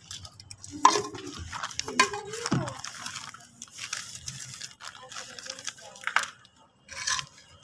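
Damp sand-and-cement mix crunching and crumbling as it is worked by hand, in a series of irregular sharp crunches.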